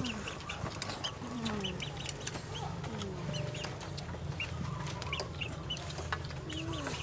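Chickens clucking, short calls repeating, with light clicks of chopsticks and spoons against bowls.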